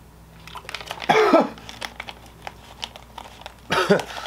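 Crinkling and rustling of a plastic bait package being opened to take out soft-plastic worms. Two short sounds from a man's voice break in, about a second in and near the end.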